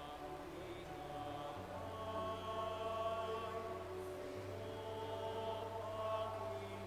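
Church choir singing a slow hymn in long held notes, over a steady low accompaniment that changes note twice.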